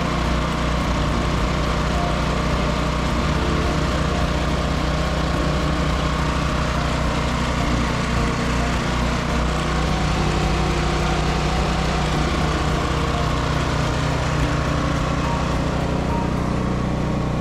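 Generac 7 kW CorePower standby generator's overhead-valve engine running steadily at constant speed. The engine runs normally again now that a faulty, acid-leaking battery that kept it from starting has been replaced.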